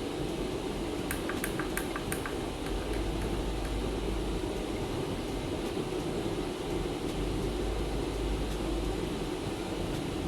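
A quick run of short ticks about a second in, lasting about a second: buttons being pressed on the YC-100 electronic humidifier's control panel to set the humidity. A steady hiss and low hum run underneath throughout.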